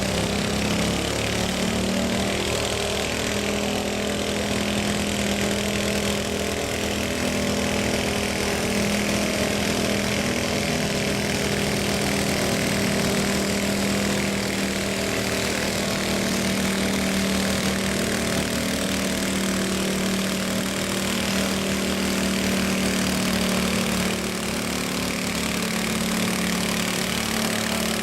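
Modified riding lawn mower engine running steadily at a near-constant speed, dropping slightly in loudness near the end.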